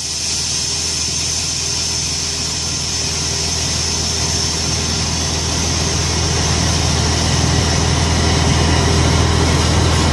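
Heavy diesel truck engine running steadily, with a steady high whine above it; the sound grows slightly louder toward the end.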